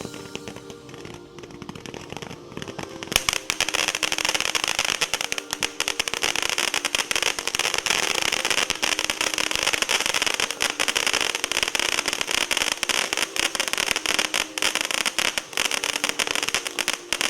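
Ground fountain firework (the «Августин» fountain) that catches about three seconds in and then sprays sparks with a steady hiss and dense crackling from its crackling stars.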